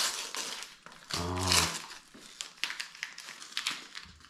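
Gift wrapping paper being crinkled and torn open off a small box, in irregular rustles and rips, with a brief low hum about a second in.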